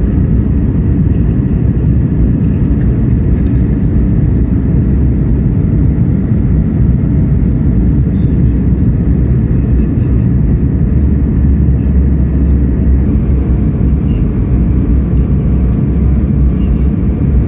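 Steady cabin drone of an Airbus A220-300 in flight: the Pratt & Whitney PW1500G geared turbofans and rushing airflow, heard from a rear window seat, with a slight shift in tone about two-thirds of the way through.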